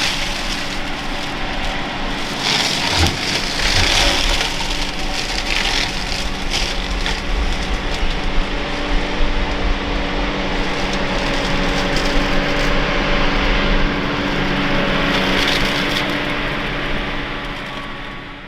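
Engine of a grass-cutting machine running steadily, very noisy, fading away near the end as it passes.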